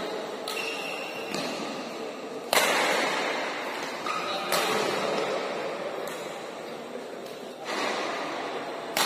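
Badminton rackets striking the shuttlecock in a doubles rally, sharp smacks at irregular intervals of about a second or more, the loudest about two and a half seconds in. The smacks echo in the large hall over a steady background murmur.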